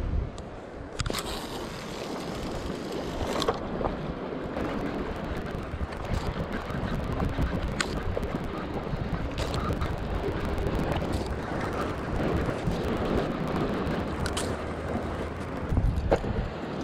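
Wind buffeting the microphone over the wash of sea waves, with a few faint clicks.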